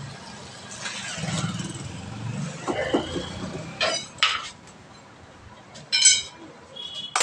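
Steel tyre levers clanking and ringing as they are picked up off a concrete floor: several sharp metallic clanks in the second half, the loudest about six seconds in. Before them, a low rumbling scrape as the steel-rimmed wheel is handled and laid flat.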